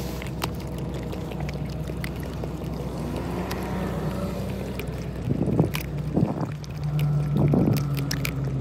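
A husky licking whipped cream out of a small plastic cup, with quick wet licking clicks, over the steady low hum of a car.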